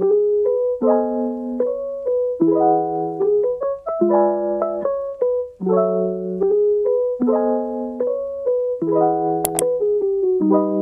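Background music: a piano playing slow chords that change about every second and a half. Two quick sharp clicks come about nine and a half seconds in.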